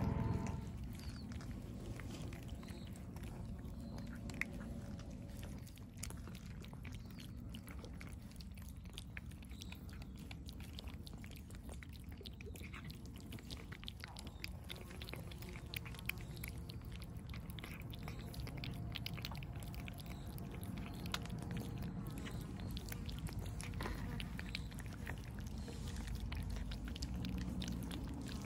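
Several cats eating cat food from plates, a steady run of small wet chewing and smacking clicks.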